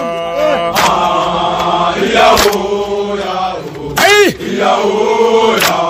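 Voices chanting a soldiers' song in long held notes with pitch glides, over a sharp hit about every second and a half.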